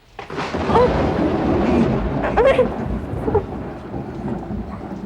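A thunderclap rolling over steady rain. The rumble swells sharply just after the start, peaks within about a second, then slowly dies away.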